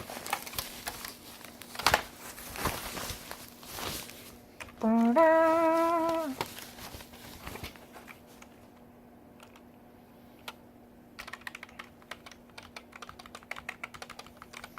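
Packaging rustling for a few seconds, a short hummed note that steps up in pitch, then keyboard keys pressed and clicked over and over, testing the keys.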